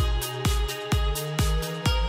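Background electronic dance music with a steady kick-drum beat, about two beats a second, under a slowly rising synth note.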